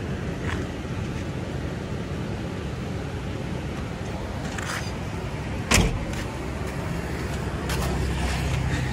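A motor vehicle's engine running with a steady low rumble, a little louder near the end, with one sharp knock a little before six seconds in.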